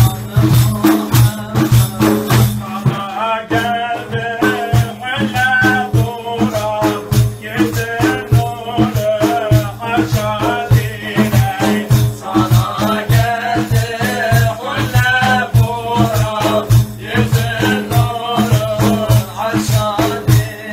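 Several large frame drums (def) beaten together in a steady, even rhythm, the rings inside them rattling with each stroke. A man's voice sings a Sufi hymn over the drums from a few seconds in.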